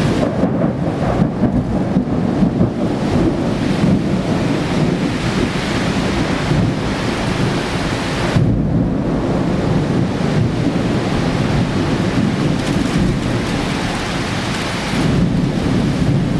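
Torrential cloudburst rain pouring down, a loud, steady rushing noise with a heavy low rumble.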